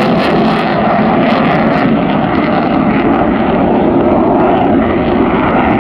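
Eurofighter EF-2000 Typhoon's twin Eurojet EJ200 turbofans at full power in afterburner: loud, steady, dense jet noise that holds without letting up.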